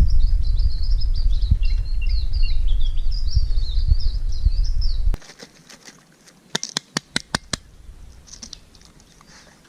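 A songbird singing a fast, chattering warble over a heavy rumble of wind on the microphone. After about five seconds this cuts off, and a quick run of about six sharp clicks follows.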